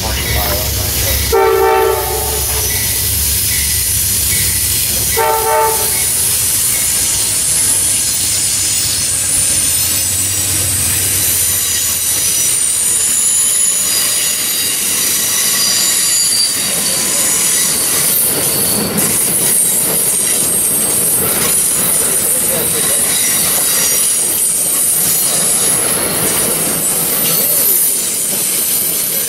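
Amtrak GE P42DC diesel locomotive passing: two short horn blasts about one and five seconds in, over the low engine rumble, which fades after about twelve seconds. Passenger cars then roll by with high-pitched wheel squeal on the curve and rail noise.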